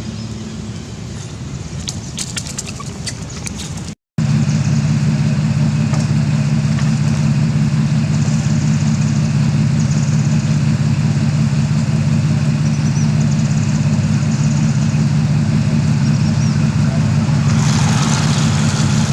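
An engine idling with a steady low hum. It cuts out for an instant about four seconds in and is louder after.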